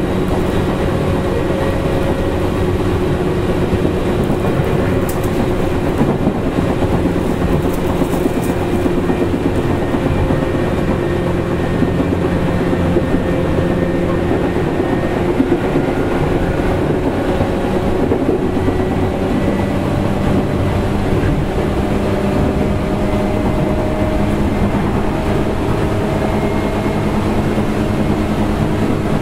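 Tokyu 8500 series electric train running at speed, heard from inside a motor car: steady wheel-on-rail rumble under the hum of the traction motors. The motor hum creeps up in pitch over the second half.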